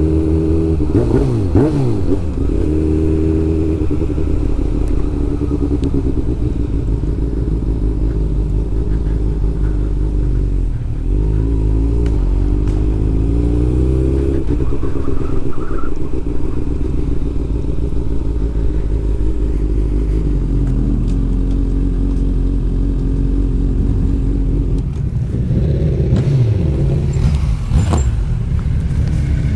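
Honda CB600F Hornet's inline-four engine running at low road speed, its pitch rising and falling with the throttle, with a steady rise about halfway through. Near the end another engine's pitch sweeps across it as other motorcycles come close.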